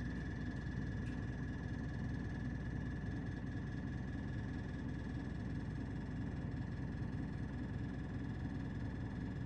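Steady low rumble of a city route bus's engine and road noise heard from inside the passenger cabin, with a thin steady whine held above it.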